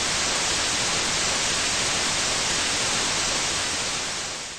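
Steady, even hiss of static noise that fades out near the end.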